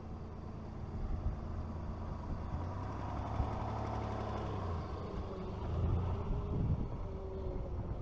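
Four-wheel-drive vehicles driving slowly past on a dirt track: a Mitsubishi 4WD's engine running at low revs, getting louder as it passes about halfway through, then a second vehicle towing a camper trailer, with tyres rolling on the dirt.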